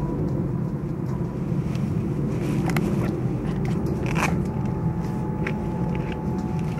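Small metal clicks and scrapes of a multi-tool's screwdriver bits and bit holder being handled and fitted, the sharpest click about four seconds in, over a steady low rumble.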